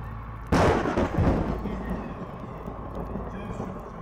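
A sudden loud boom about half a second in, a second blast close behind it, rumbling away over a second or so above a steady low rumble.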